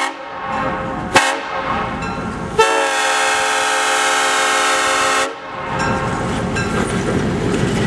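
EMD FP7 diesel locomotive's multi-note air horn sounding for a grade crossing: a brief toot about a second in, then a long blast of about three seconds. As the horn stops, the locomotive's engine and wheels rumble past close by.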